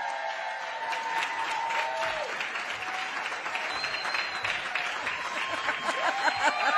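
A roomful of people applauding, dense steady clapping with a few voices calling out over it; the clapping grows louder near the end.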